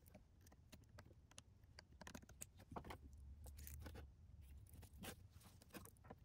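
Faint, scattered clicks and light scrapes of cable connectors being handled and plugged in.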